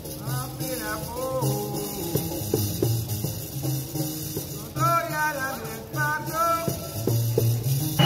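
Background music: a melody of gliding, ornamented notes over steady low bass notes.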